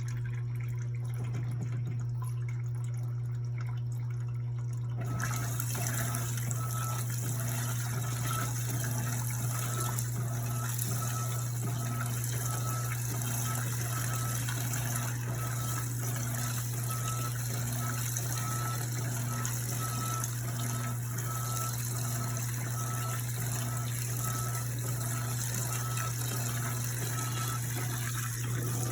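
Electrolux washing machine with water rushing through it, starting suddenly about five seconds in, over a steady low hum, with a faint regular pulse in the rushing.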